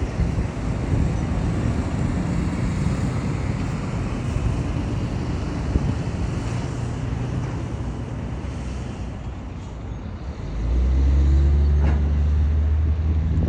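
Steady rumble of road traffic. About ten seconds in, a deep engine hum comes in louder and holds.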